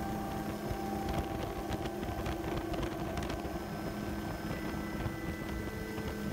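Steady drone of a helicopter heard from inside the aircraft, engine and rotors running, with a few steady tones over the noise and a scatter of faint clicks in the first half.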